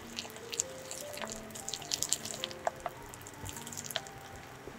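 Wire balloon whisk stirring flour into egg yolk in a glass bowl: quick, irregular wet clicks and taps of the wires in the thick batter and against the glass.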